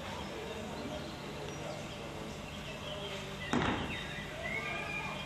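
A single sharp knock about three and a half seconds in, over a steady low hum and faint high chirps.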